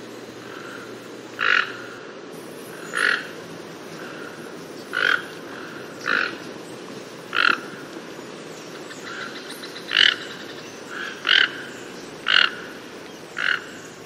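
Toucan calling: a short call repeated about nine times, roughly every one to two seconds.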